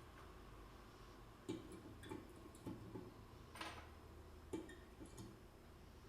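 Plastic kitchen tools being stacked and fitted back together: a handful of faint clicks and knocks, starting about a second and a half in, with a short scrape near the middle.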